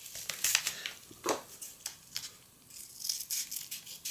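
Packaging being handled: a string of short rustles and light clicks, with a quieter moment a little past the middle.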